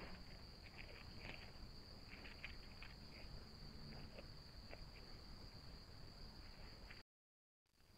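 Faint night ambience: a steady high-pitched insect trill, with soft scattered rustles and ticks of a deer stepping and grooming in leaf litter. The sound cuts out briefly about seven seconds in.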